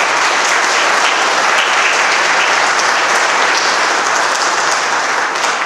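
Audience applauding, a steady dense clapping that begins to ease near the end.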